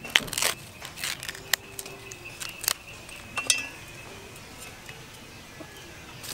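A bamboo shoot's papery husk being torn off and cut with a knife over a wooden chopping board: a run of sharp crackles, snaps and clicks through the first three and a half seconds, thinning out after that.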